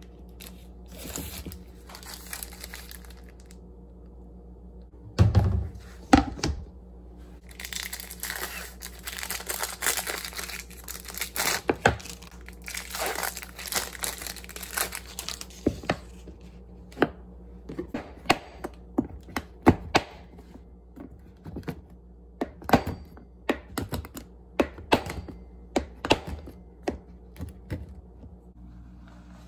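A couple of heavy knocks, then a long stretch of crinkling and rustling, as of paper or plastic packaging being handled. After that comes an irregular run of light clicks and taps.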